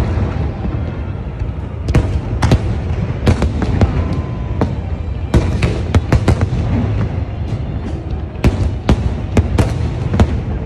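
Fireworks display: a rapid, irregular string of sharp bangs, several a second, over a steady low rumble.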